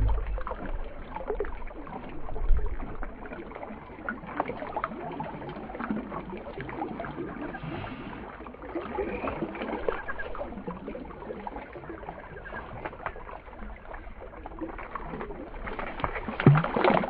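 Shallow river water flowing and splashing around a bamboo basket held in the current, with many small irregular clicks and a louder burst near the end.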